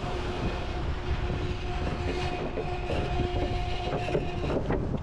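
Steady rumbling of a running vehicle, with a steady hum over it and scattered clicks and knocks; the hum stops about four and a half seconds in.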